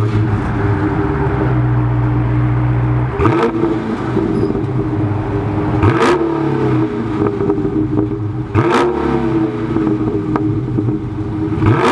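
Dodge Charger 392's 6.4-litre HEMI V8 idling through its stock exhaust, with mid mufflers still fitted, and blipped four times, about every three seconds.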